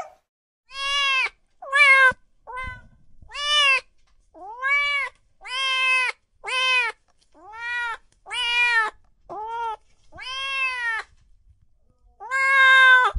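Domestic cat meowing over and over: about a dozen separate meows, each rising then falling in pitch, with a longer pause before the last, loudest one.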